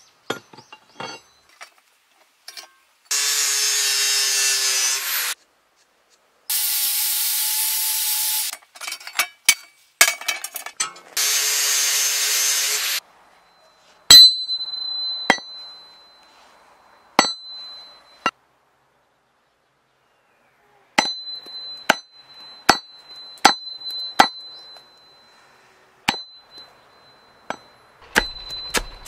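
Hatchet work on wood. First come three long, even scraping sounds of about two seconds each. From about halfway on there are sharp knocks at irregular spacing, many followed by a high ringing tone.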